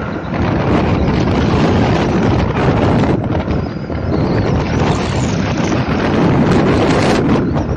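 Loud, steady wind rush buffeting the microphone of a camera travelling along a highway, mixed with the rumble of the moving vehicle and its tyres on the road.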